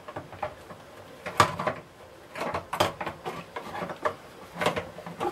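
Scattered knocks, clicks and light clatters of a Hoover Junior 1346A vacuum cleaner's motor being lowered by hand into its plastic housing, hard parts bumping against the case. The loudest knock comes about one and a half seconds in, with smaller ones near the middle and near the end.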